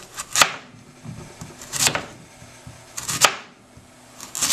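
Large kitchen knife slicing a gold zucchini into thin rounds on a cutting board: each stroke a short crisp cut ending in a sharp knock of the blade on the board, about once every second and a half.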